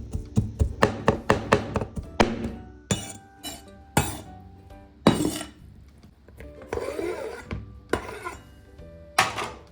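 Knife chopping on a cutting board in quick, even strokes for about the first two seconds, then scattered clinks and scrapes of kitchen utensils and dishes, over background music.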